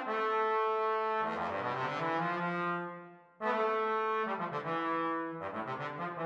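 Orchestral film score of held brass chords. The music fades away about three seconds in, then comes back in suddenly.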